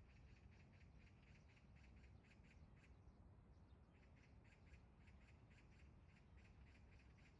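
Magpie chattering: a faint, fast rattle of harsh calls, about five a second, in two bouts broken by a short pause about three seconds in.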